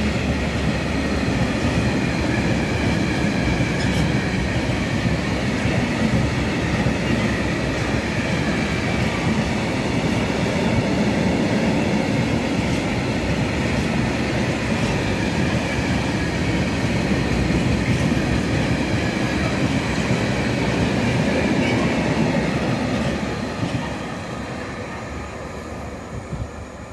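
Freight train of tank wagons rolling past on the track: a steady rumble and clatter of wheels over the rails, with a thin wheel squeal. The sound fades near the end as the train draws away.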